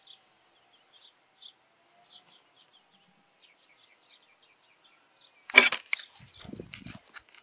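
Faint high chirping, then a sudden loud crack about five and a half seconds in: a hard knock as a nest is knocked off the boat, followed by a second or so of rattling and scraping.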